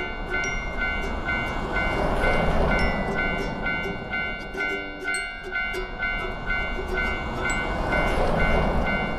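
Japanese level-crossing warning bell ringing steadily in an even kan-kan, about two to three dings a second. A rushing rumble swells and fades twice, about two and eight seconds in.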